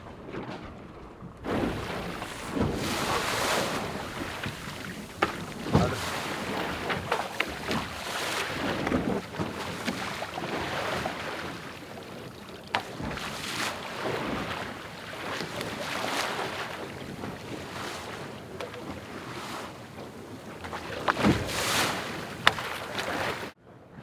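Onboard an IMOCA 60 racing yacht under sail: water rushing past the hull and wind buffeting the microphone in repeated surges, with frequent sharp knocks and bangs from the boat. The sound comes in about a second and a half in and cuts off abruptly just before the end.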